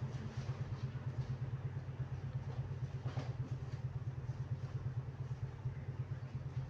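An engine running steadily at idle: a low hum with a fast, even pulse.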